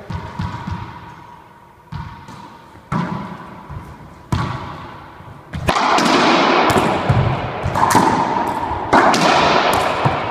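Racquetball being bounced on the court floor a few times, then served and rallied: sharp smacks of the ball off racquets, floor and walls, echoing loudly in the enclosed court. The hits come singly about a second apart at first, then fast and close together from about halfway in.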